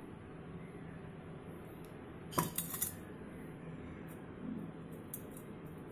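A stainless-steel bowl clinking as it is handled, with a quick run of three or four metallic knocks about two and a half seconds in and one light click near the end, over faint steady background noise.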